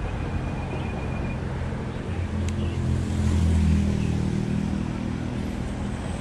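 Road traffic with a motor vehicle's engine passing close, its low hum swelling to its loudest a little past the middle and then easing off.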